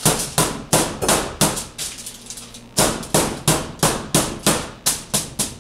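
Pork schnitzel being pounded thin under aluminium foil on a wooden cutting board: sharp blows about three a second, with a short pause about two seconds in.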